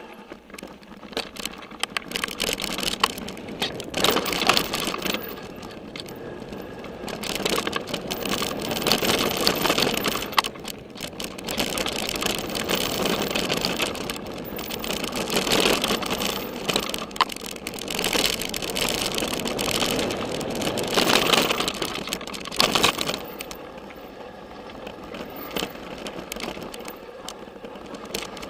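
Downhill mountain bike running fast over a rocky dirt trail, heard from a camera riding along. Wind and tyres on gravel make a rushing noise that swells and eases with speed, broken by frequent clattering knocks of the bike over rocks.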